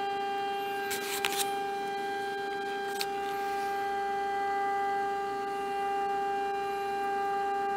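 Steady test tone from the Hallicrafters S-120 shortwave receiver's speaker: the signal generator's modulated 455 kHz signal coming through the receiver while its IF coils are peaked for maximum output. A few brief clicks sound about a second in and again about three seconds in.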